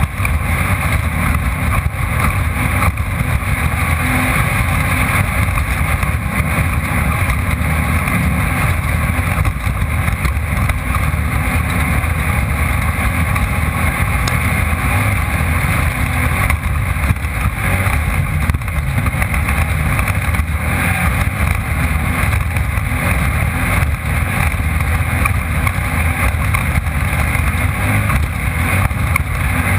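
Off-road desert race car driving hard, heard from a camera mounted inside the car. The engine noise is loud and unbroken, mixed with rough-terrain and wind noise.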